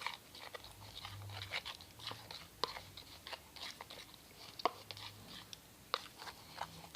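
Slime mixture of glue and activator being stirred in a bowl with a stirrer: irregular sticky clicks as the mixture thickens.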